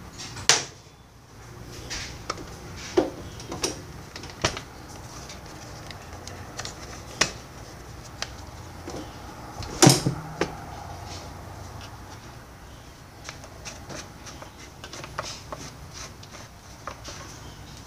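Scattered clicks, taps and knocks of hands handling the plastic housing and parts of a Ryobi CS26 gas trimmer. The loudest knocks come about half a second in and about ten seconds in.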